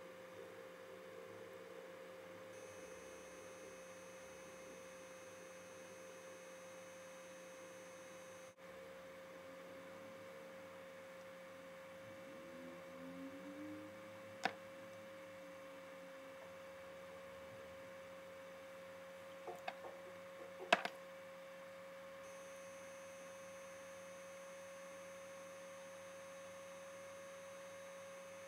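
A faint steady electrical hum held at one pitch, with a few short clicks about halfway through and again near two-thirds of the way in.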